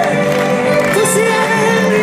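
Live pop-rock band playing loud at a stadium concert, with singing, heard from within the crowd.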